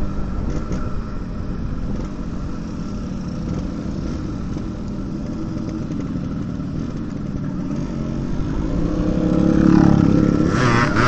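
Yamaha RX-King's two-stroke single-cylinder engine running under way, its standard muffler made louder by cutting out the long baffle and replacing it with iron pipe. The revs climb and the sound grows louder near the end.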